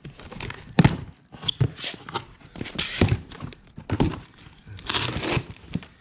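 A cardboard parts box being opened and handled: irregular thumps, scrapes and rustling of cardboard.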